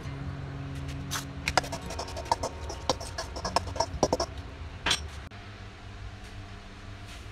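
Stuffing of chopped tomatoes, onions and seasoning being mixed by hand in a stainless steel bowl: a quick run of clicks and light scrapes against the metal from about one to four and a half seconds in, with one more click near five seconds.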